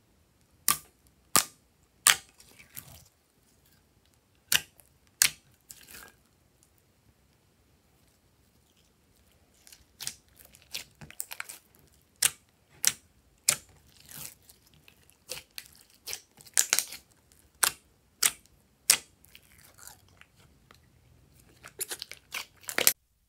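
Hands pressing, kneading and stretching glossy slime in a glass dish: irregular sticky pops and clicks as the slime pulls away from the fingers, sparse between about four and ten seconds in, then cutting off suddenly just before the end.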